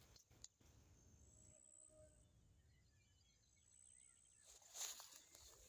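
Near silence: faint outdoor ambience with a low rumble and scattered distant bird chirps, then a few brief rustles near the end.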